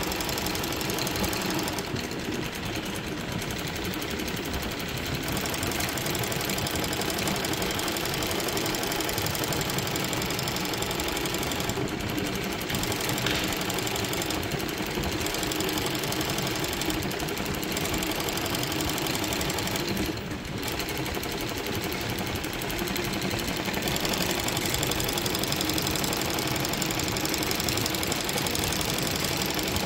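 Sequin embroidery machine stitching sequins onto fabric: its needle runs steadily in a fast, continuous mechanical rattle, dipping briefly about twenty seconds in.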